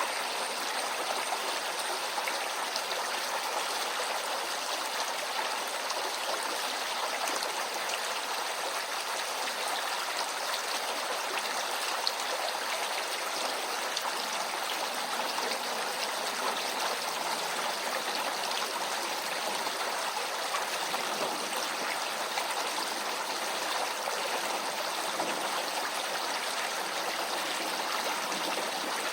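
Small brook flowing, a steady, even rush and babble of running water.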